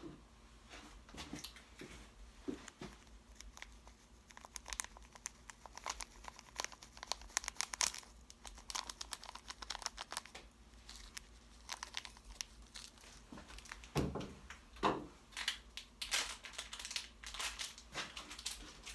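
Plastic glitter packaging crinkling and rustling as it is handled, in irregular crackles, with two louder bumps about three-quarters of the way through.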